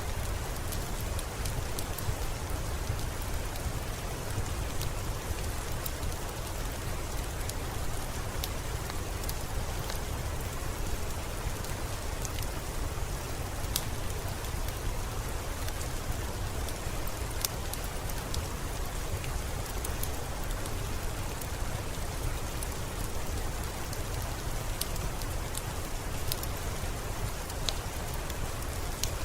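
Steady rainfall with a low rumble underneath, dotted with scattered sharp crackles from a wood fire.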